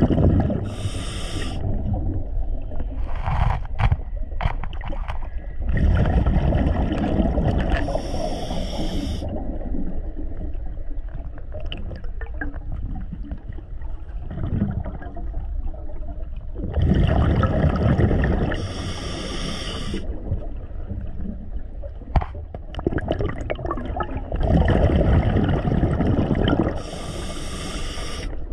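Scuba diver breathing through a regulator underwater: the bubbling rumble of exhaled air and the hiss of the demand valve, one breath about every nine seconds.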